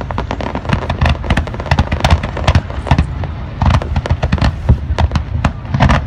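Aerial fireworks bursting in rapid succession, a dense run of sharp bangs and crackles over a deep, continuous rumble.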